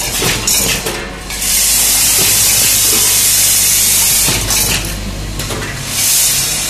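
Vibratory bowl feeder running with a steady hum, metal screws and nails clinking as they rattle along its feed track. A loud hiss of air starts about a second and a half in and lasts about three seconds, and a shorter hiss comes near the end.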